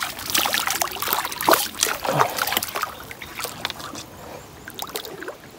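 Water splashing in a shallow creek as a hooked fish thrashes at the surface. The splashing is dense for the first two to three seconds, then thins to scattered small splashes and drips.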